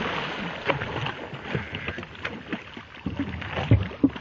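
Hooked five-pound largemouth bass thrashing and splashing at the water's surface. The splashing is heaviest at first and continues as scattered splashes after that.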